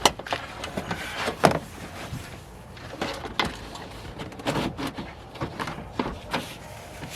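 Irregular clicks, knocks and rustling of hands working with the backup camera's wiring and plastic parts on the car, with a sharp knock right at the start and another about a second and a half in.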